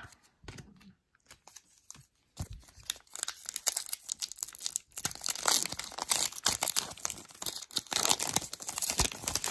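A few soft clicks, then, from about two seconds in, the foil wrapper of a hockey card pack being torn open by hand: a dense crackling rustle of many sharp crackles that goes on to the end.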